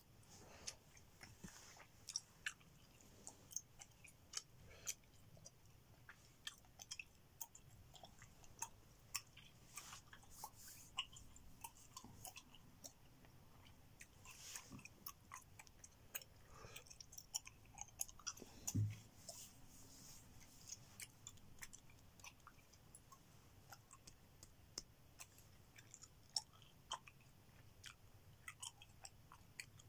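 Gum chewing with the mouth open: an irregular run of sharp smacks and clicks, a few a second, faint overall. A single low thump comes a little past the middle.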